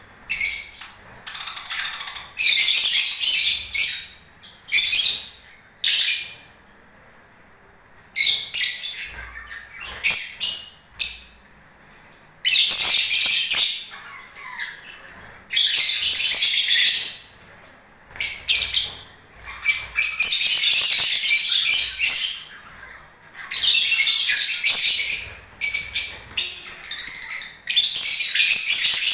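Lovebirds chattering and squawking in shrill, high-pitched bursts of one to two seconds, again and again with short pauses between.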